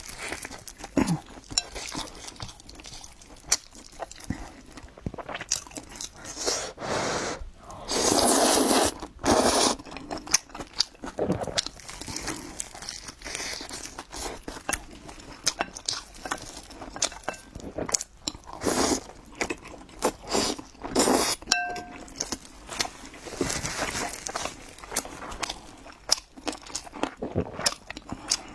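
Close-miked eating: irregular crunchy bites and chewing. There is a louder, longer crunch about eight seconds in.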